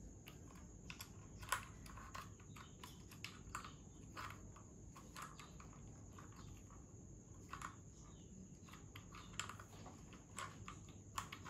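Faint, irregular clicks and taps of a ring light's plastic mount being fitted onto its stand and the mounting screw turned by hand. The sharpest click comes about a second and a half in, and a few more come close together near the end, over a faint steady hum.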